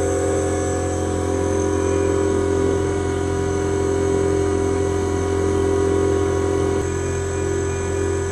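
Spectral MM milling machine running steadily as its 10mm three-flute end mill cuts a slot in copper under slow Y-axis feed: a constant mechanical drone with several steady tones.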